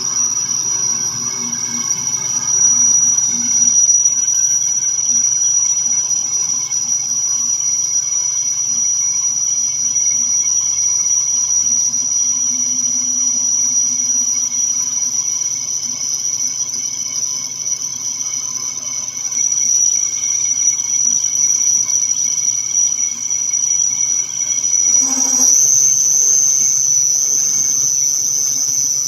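Bench metal lathe running with a steady high whine while a carbide-insert tool cuts a spinning aluminum workpiece. About 25 seconds in, the sound briefly changes and then settles again.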